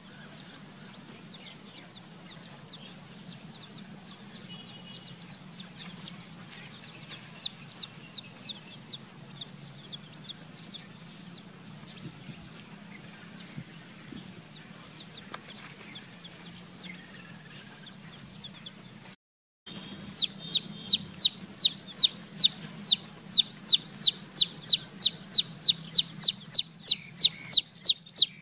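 Baby chicks peeping: short, high, falling peeps, a few scattered at first, then after a brief break a loud, steady run of peeps about three a second.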